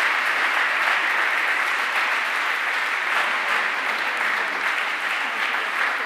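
Audience applauding, steady clapping.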